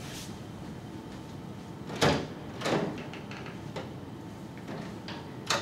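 A door being opened and shut: a clunk about two seconds in, a lighter knock soon after, and a louder double clunk at the very end as it closes.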